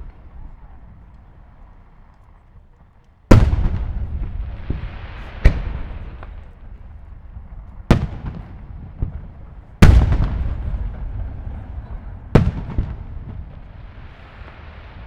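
Aerial fireworks shells bursting: five loud booms, the first about three seconds in, each trailing off in a long rolling echo, with a soft hiss after the first and last.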